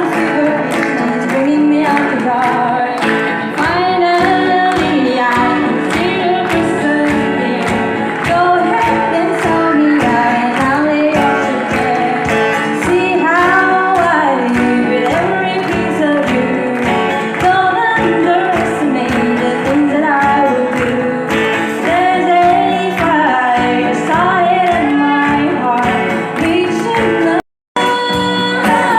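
Live band playing a song with a singer, most likely female, over a steady drum beat. The sound cuts out for a split second near the end.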